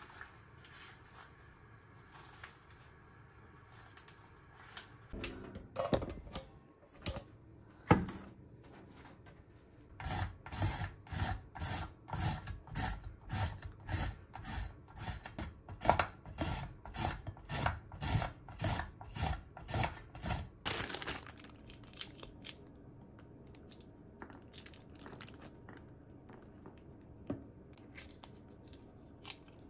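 Burdock root being cut into thin strips on a handheld julienne slicer: a run of about thirty quick scraping strokes, two or three a second, lasting around ten seconds. A few kitchen knocks and one sharp clack come before it.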